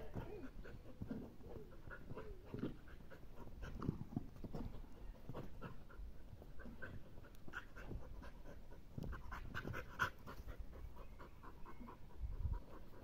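Mixed-breed dog panting, short quick breaths throughout, out of breath from running and jumping.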